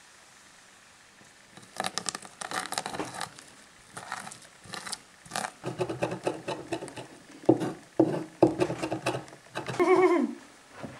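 Curved chopping knife rocking and striking a wooden chopping board as it minces herbs and vegetables, in bursts of rapid chops. A brief pitched, wavering sound comes just before the end.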